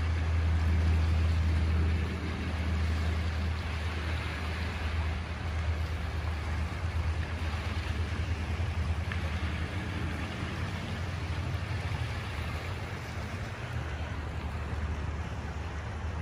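Steady low rumble under a soft wash of sea water at the shore. The rumble is strongest for the first two seconds or so, then eases and holds steady.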